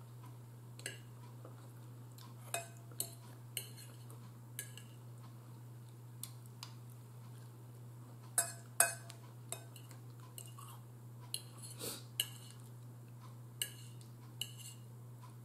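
Metal fork clinking and scraping against a bowl while eating: about a dozen short, sharp clinks at uneven intervals, the loudest a little past the middle. A steady low hum runs underneath.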